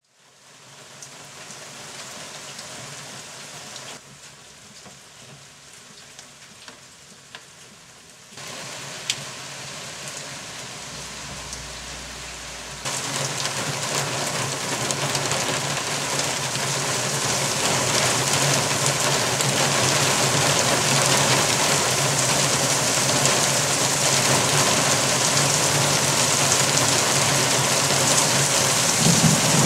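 Rain falling steadily during a thunderstorm, getting heavier and louder, with abrupt jumps in level about 8 and 13 seconds in. A single sharp click about 9 seconds in.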